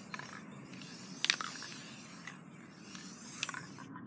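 Aerosol spray-paint can spraying in a steady hiss, with a couple of sharp clicks, cutting off just before the end.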